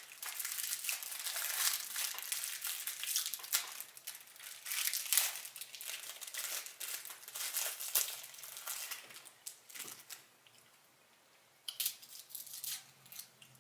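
Plastic fortune cookie wrapper crinkling and tearing as it is opened, in a long run of crackly handling, with a quiet pause of about a second and a half near the end before more crinkling.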